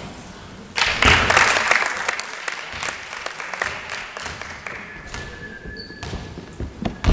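Spectators in a gym clapping, breaking out suddenly about a second in and slowly dying away over several seconds.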